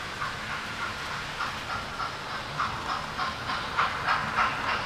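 Model train running on the layout track, its wheels clicking over the rail joints about three times a second over a low motor hum, growing louder as the coaches pass close by near the end.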